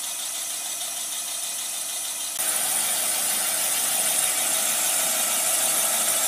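Portable cylinder boring bar running as it cuts out a cylinder in a Jeep 2.5 four-cylinder block, enlarging the bore to take a sleeve: a steady mechanical hiss with a thin high whine. It gets louder about two and a half seconds in.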